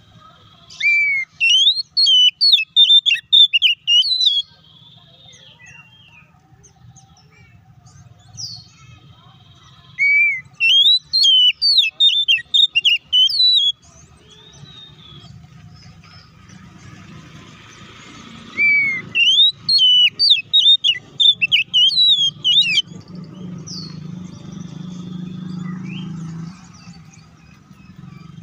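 Oriental magpie-robin singing in three bursts of quick, varied whistled notes, with single rising whistles between them, over a low background hum that grows louder near the end.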